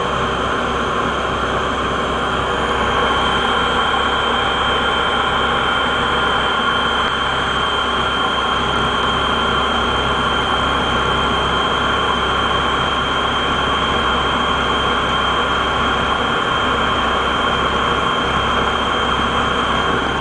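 Waste vegetable oil boiler's burner running steadily: a constant machine noise with a steady high whine.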